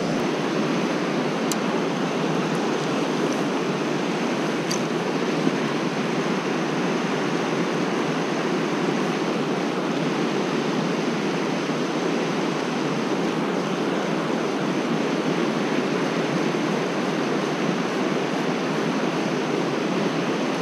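River water rushing steadily over shallow rapids and riffles around the wading angler, an even rush of noise with a couple of faint ticks early on.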